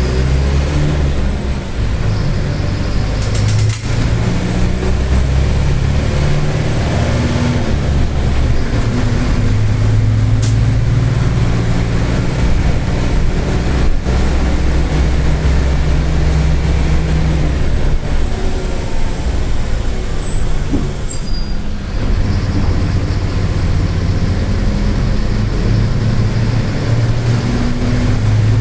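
Mercedes-Benz OF-1722M diesel city bus under way, its engine note stepping up and down, with the differential growling.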